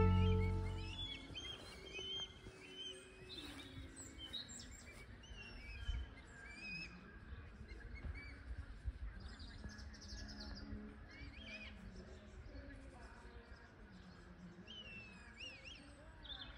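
Birds calling outdoors: scattered short chirps and whistles, some gliding down in pitch, over a faint background. The last note of the music dies away in the first second.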